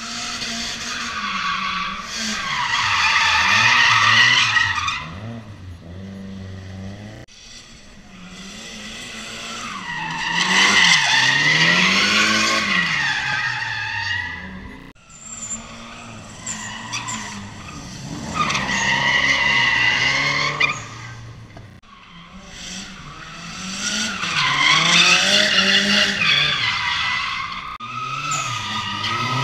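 Drift car's engine revving up and down while its tyres squeal as it slides sideways. This comes in four long bursts, roughly every seven or eight seconds.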